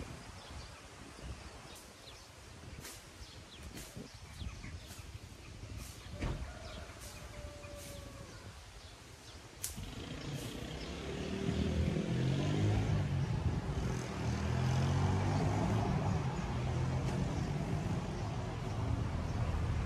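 Scattered sharp clicks over a quiet outdoor background, then, about ten seconds in, a motor vehicle's engine comes in with a low hum, growing louder over a couple of seconds and then holding steady.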